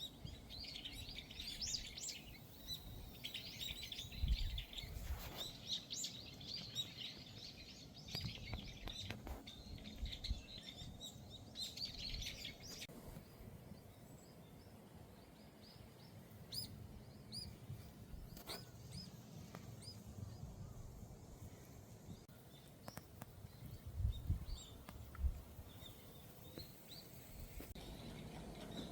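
Small songbirds chirping and calling, busy for the first dozen seconds and then more scattered. A few low thumps, the loudest moments, come about four seconds in and again near the end.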